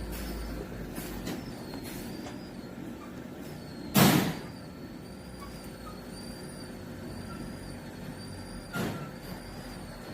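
Makgeolli four-nozzle bottle-filling machine running with a steady hum and a faint wavering whine. A short sharp hiss of air comes about four seconds in and a weaker one near the end.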